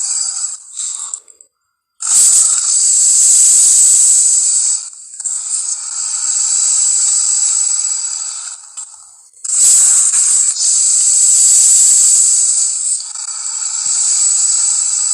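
Film monster sound effect for a dinosaur-like creature: a few short cries, then, after a brief silence, a series of long hissing screeches, each lasting about three seconds.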